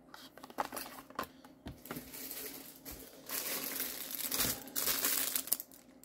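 A few light taps, then a clear plastic zip-top bag crinkling as it is handled, in several stretches from about two seconds in.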